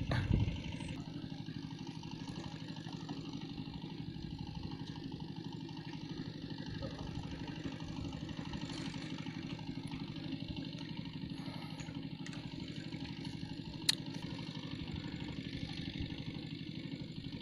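A small engine running steadily at an even speed, with one sharp click about fourteen seconds in.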